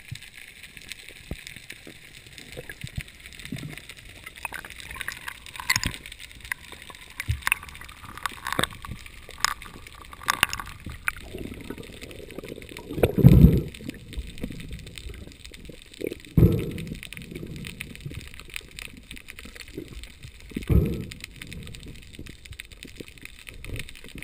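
Underwater noise heard through a diving camera's waterproof housing during a spearfishing dive: a steady hiss with scattered sharp clicks and knocks in the first half, then three heavy low thuds, the loudest about halfway through, the others about two-thirds of the way and near the end.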